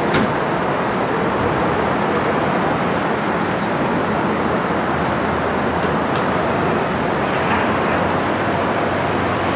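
Steady city street traffic noise, an even rumble and hiss of passing vehicles with no single event standing out.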